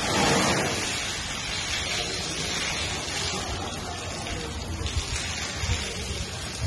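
Water from a hose held in an elephant's trunk pouring and splattering onto a wet floor, a steady rain-like hiss that is loudest in the first second, with a few sharper splashes near the end.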